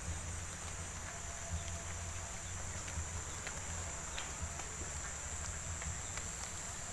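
A steady, high-pitched insect chorus over a steady low rumble, with scattered faint ticks.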